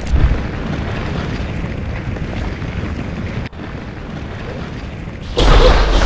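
Added sound effects for a super-powered kick: a boom at the start, then a steady rushing rumble that cuts off suddenly about three and a half seconds in, and a loud explosion-like blast near the end.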